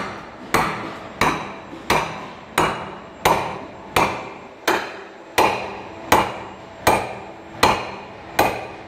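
Hammer striking a cold chisel against the wall of a plastic manhole cone in a steady rhythm, a sharp knock with a short ring about every 0.7 seconds, a dozen or so blows in all. The blows are a strength test of the cone's plastic, which gouges without breaking.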